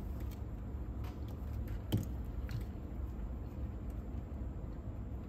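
Low steady hum with a few light mechanical clicks from the Nakamichi 680ZX cassette deck's transport mechanism, and one sharper click about two seconds in.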